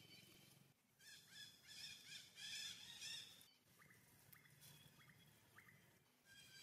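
Faint bird calls: a warbling call for a couple of seconds, then a few short rising chirps, over a faint steady high-pitched drone.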